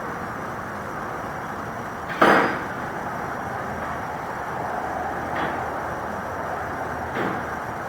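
Steady engine-like noise runs throughout. About two seconds in there is one sharp, loud burst, and two weaker ones come near the middle and near the end.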